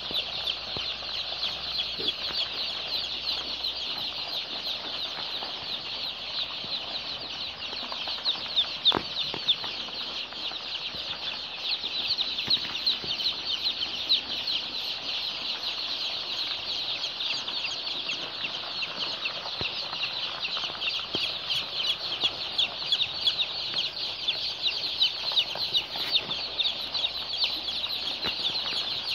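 A large flock of Black Australorp and Rhode Island Red crossbred chicks peeping all at once: a continuous dense chorus of high-pitched cheeps.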